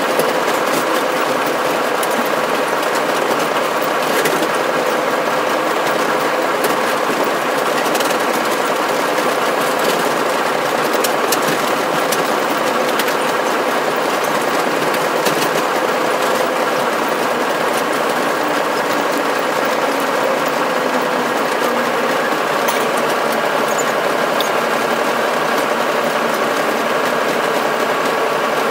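Locomotive running steadily, heard from inside the cab: an even, unbroken engine drone with a few faint clicks.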